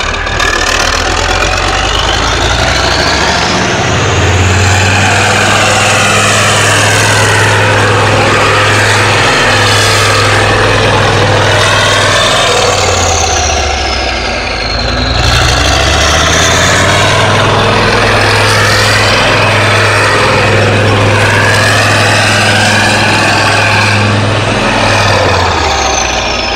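Arjun main battle tank's V10 diesel engine running loudly as the tank manoeuvres, a deep steady drone that steps up and down in pitch. High whines rise and fall above it, and the engine eases briefly about halfway through before picking up again.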